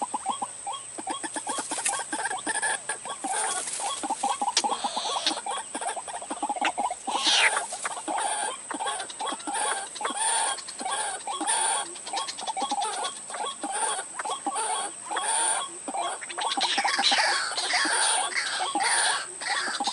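White-breasted waterhen (ruak-ruak) calls played as a lure: a fast, dense chatter of short repeated clucking notes. In the last few seconds come falling squawks, about two a second.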